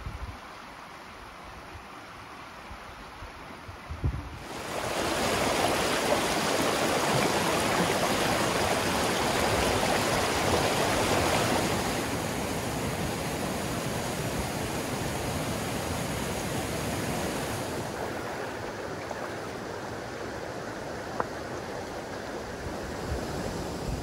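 Rushing creek water spilling over small waterfalls, a steady even rush. It steps much louder about four seconds in, then eases down a little twice in the second half.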